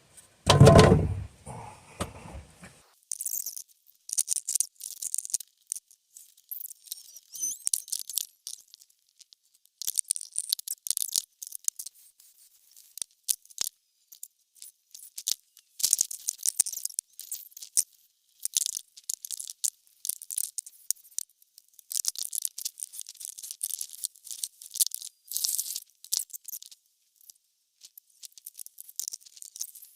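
A heavy low thump about a second in, then irregular bursts of high scraping and rustling from hands-on work with hardware and wood.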